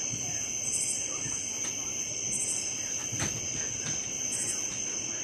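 Crickets and other night insects trilling steadily, with a higher pulsing chirp repeating every second or two. A single sharp click about three seconds in.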